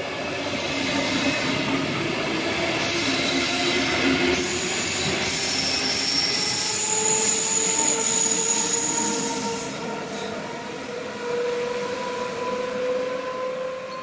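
Zürich S-Bahn double-deck push-pull train with an SBB Re 450 electric locomotive passing close along a curved platform track. Its wheels squeal on the curve with several shrill tones over the rumble, and a steady tone rises slowly in pitch in the second half. The noise is loudest in the middle and eases after about ten seconds as the locomotive goes by.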